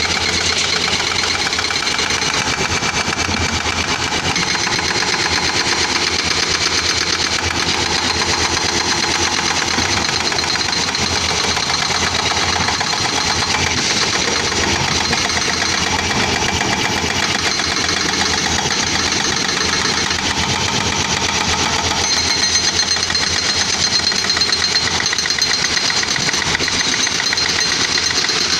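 Caterpillar 320D excavator's C6.4 diesel engine running steadily under working load, with a fast, even mechanical clatter.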